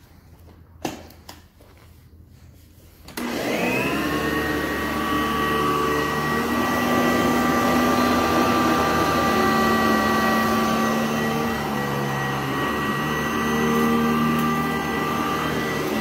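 Custom-built Sanitaire SC899 commercial upright vacuum cleaner switched on about three seconds in: the motor whines up to speed within a second or so, then runs steadily. A single knock comes about a second in, before it starts.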